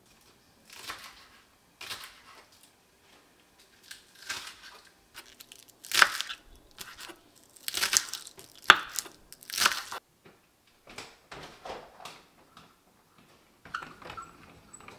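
Kitchen knife chopping fresh greens on a wooden cutting board: irregular crisp cuts, loudest and closest together in the middle, then a few lighter taps.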